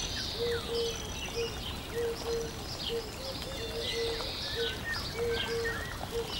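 Many birds chirping and twittering, with a low whistled note repeated in short pairs about once a second.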